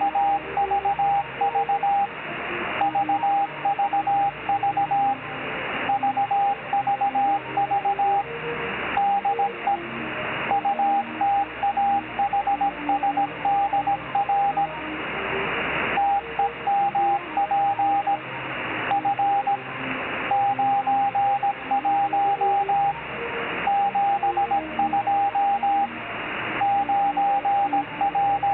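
Morse code from a 10-metre amateur radio CW beacon heard through a WebSDR receiver: a single mid-pitched beeping tone keyed in dots and dashes, in groups with short pauses between them. The beacon is sending telemetry of temperature, humidity and line voltage. Radio hiss runs underneath and swells up in each gap between groups.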